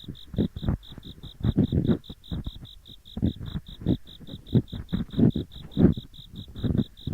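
Ear pick scraping heavily inside the ears of a binaural microphone, both sides at once, in irregular deep rubbing strokes. Behind it, autumn insects chirp in an even, high pulse about five times a second.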